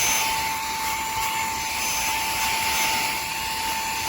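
Cordless handheld vacuum cleaner running on its higher speed, a steady motor whine over the hiss of rushing air as it sucks up debris.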